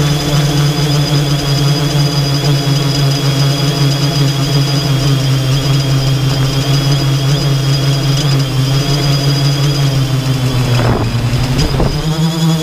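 The eight electric motors and propellers of a 3DR X8+ octocopter, heard up close from the aircraft itself, humming steadily with a high motor whine over the drone. About eleven seconds in, the pitch drops and climbs back twice in quick succession as the motor speed changes.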